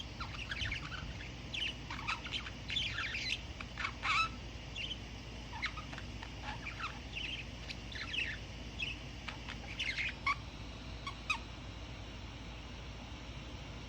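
An English budgerigar chattering with short, quick chirps and warbles while it sits half-asleep. The chirps are dense in the first half, then come only now and then.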